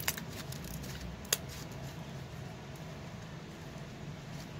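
Hands handling and squeezing yellow slime on a tabletop, with soft crackly squishing and two sharp clicks, one right at the start and one about a second later, over a steady low hum.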